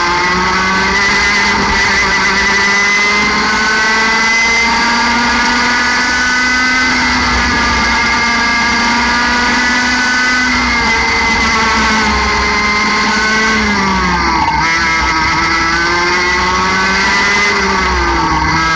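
60 cc two-stroke kart engine at full racing revs, heard onboard. Its pitch climbs slowly for about ten seconds toward roughly 15,000 rpm down the straight. It then drops sharply and climbs again twice, about three-quarters of the way in and near the end, as the throttle is lifted for corners.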